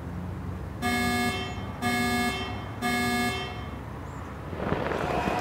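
Three identical electronic beeps, each about half a second long and a second apart, counting down to midnight. Near the end a noisy rush swells up.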